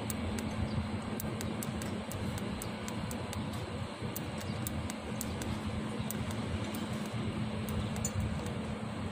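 Electric arc welding: a steady crackle of the arc with frequent sharp pops, over a low steady hum.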